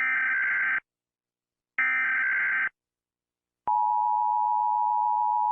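Emergency Alert System tones: two short bursts of digital SAME data tones about a second apart, then a steady two-tone attention signal starting a little before four seconds in.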